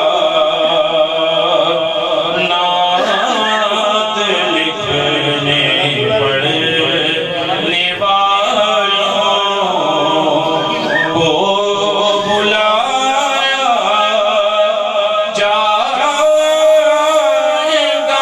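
A man's voice singing a devotional Urdu naat, drawing out long, wavering melodic notes.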